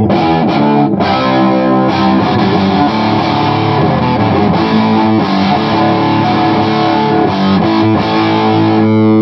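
Electric guitar played through a modified Bell & Howell Filmosound tube amplifier with both its Filmosound channel and its Bassman-style 'super lead' channel turned all the way up, so the tone is heavily overdriven. Chords are played continuously, and near the end one chord is left ringing.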